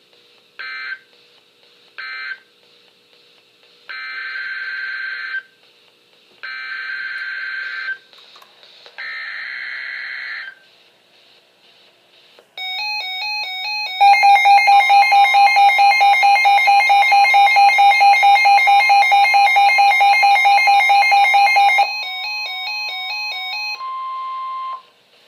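NOAA Weather Radio's EAS digital data bursts. Three short buzzy end-of-message bursts are followed by three longer header bursts announcing the next winter storm warning. Then come loud, rapid electronic alarm beeps under which the steady 1050 Hz weather-radio warning tone runs; that tone is left alone briefly near the end.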